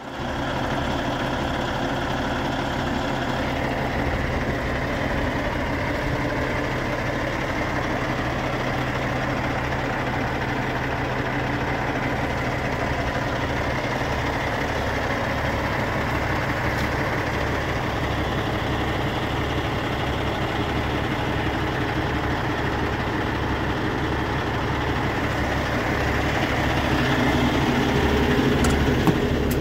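Cummins ISX15 inline-six diesel engine of a 2014 Peterbilt 367 semi truck idling steadily with a low, even throb. It grows louder near the end.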